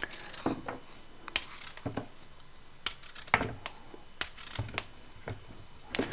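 Small knife slicing rounds off a cucumber held in the hand, with a dozen or so short, irregular clicks as the blade cuts through and the slices drop into a plastic lunch box.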